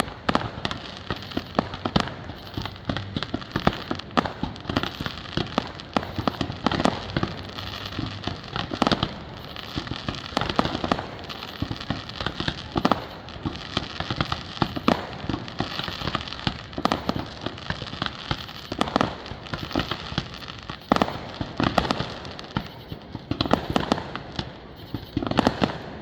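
Fireworks display: shells bursting in a dense run of bangs, several a second, with crackle between them.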